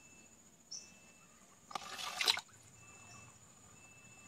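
A small plastic toy pterodactyl drops into a pond with a short splash about two seconds in, over insects chirping.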